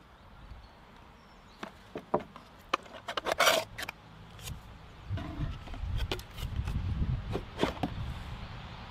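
Unpacking noises of cut-crystal bowls and a cardboard box on a wooden table: a run of clicks, knocks and scraping, loudest in a dense rustle of cardboard and paper about three and a half seconds in. A few more knocks come near the end as a bowl is lifted out of the box.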